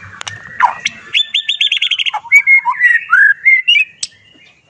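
White-rumped shama singing: a few sharp clicks, then a quick run of about eight bright repeated notes, then varied whistled phrases that fall quiet near the end.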